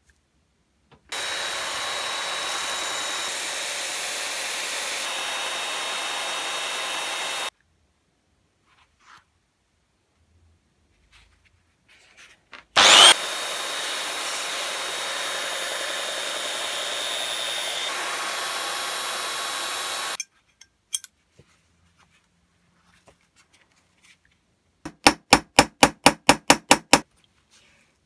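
Small electric belt sander running in two spells of several seconds each, starting and stopping abruptly, with a metal plane part held against the belt; the second spell opens with a short loud burst. Near the end comes a quick run of about a dozen short strokes.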